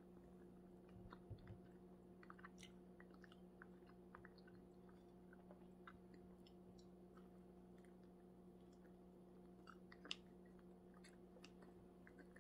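Faint chewing as a person eats a slice of pizza: soft, scattered mouth clicks and small crunches, over a steady low hum.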